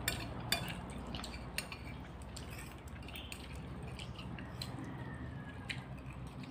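A metal spoon clicking and scraping against a dish while eating, in scattered light clicks, over a low steady hum.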